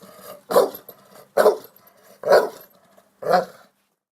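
A dog barking four times, about one bark a second.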